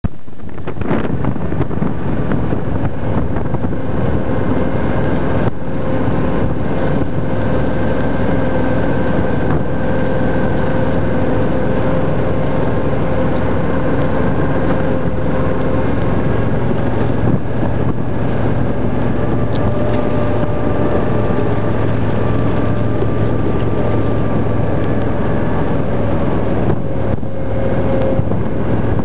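Steady engine drone with wind rushing over the microphone, holding an even pitch throughout.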